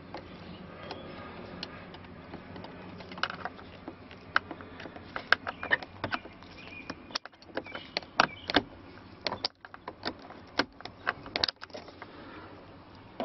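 Scattered sharp clicks and taps of a small hand tool on a screw and the metal and plastic around the dashboard's instrument cluster as the screw is worked loose. They come sparsely at first and more thickly from about three seconds in, over a faint steady low hum.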